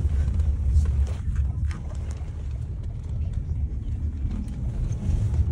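Low, steady rumble of road and engine noise inside a moving car.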